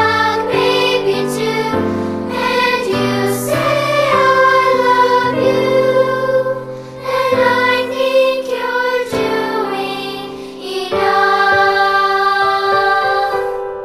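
Music with a choir singing: sustained sung notes over a backing, changing pitch in steps.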